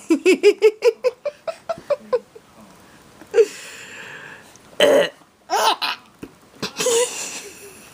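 A baby laughing in a quick run of short, pitched giggles for about the first two seconds, then breathy pauses broken by a few throaty, burp-like sounds.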